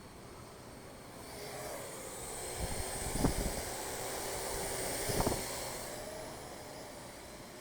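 Parrot AR.Drone 2.0 quadcopter's rotors whirring with a high hiss, growing louder as it comes close and fading away again. Two short low thumps come near the middle.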